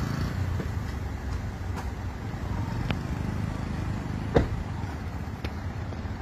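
Steady low rumble of a vehicle engine running, with a few short sharp clicks or knocks, the loudest a little past the middle.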